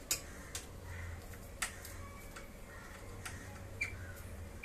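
Irregular sharp metallic clicks and taps of a hand tool working the bolts on the steel leg frame of a foldable table during assembly, over a low steady hum.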